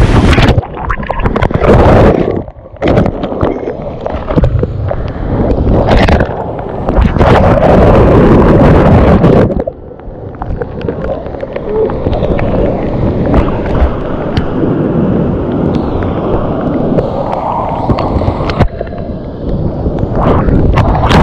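Flooded whitewater river rushing and crashing around a kayak in big rapids, with splashing and water buffeting the microphone. The roar dips briefly twice, a few seconds in and about halfway through.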